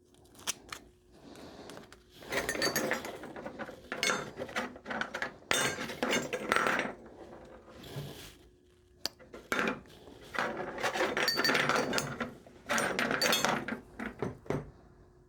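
Copper pipe and fittings being scrubbed clean by hand with an abrasive before fluxing: scraping, rubbing strokes in bouts of a second or two, with small metallic clinks as the pieces are handled.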